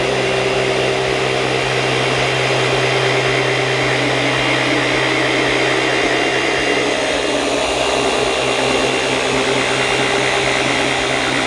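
Dynabrade DB8 forced-rotation dual-action polisher (8 mm stroke) running steadily at speed setting 4 while polishing car paint, holding an even pitch and level throughout.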